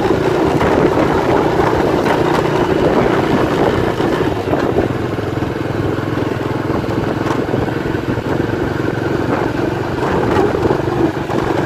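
Motorcycle engine running steadily while riding along at an even speed.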